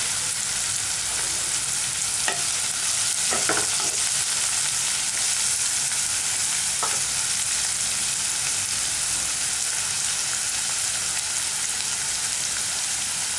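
Chopped onions sautéing in hot oil in a non-stick pan, sizzling steadily as they soften. A few faint clicks come about two, three and a half and seven seconds in.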